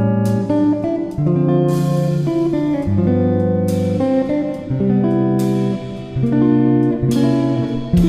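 Background music led by a plucked guitar, with notes and chords changing every second or so.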